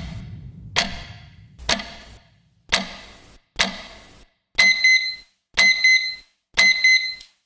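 Clock ticking about once a second, then a digital alarm clock going off with three rounds of high double beeps about a second apart.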